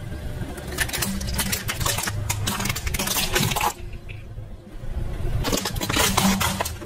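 Plastic toy figures cracking and snapping under a slowly rolling car tyre, in rapid runs of sharp cracks, with the car's engine running low underneath. The cracking comes in two spells with a short lull between.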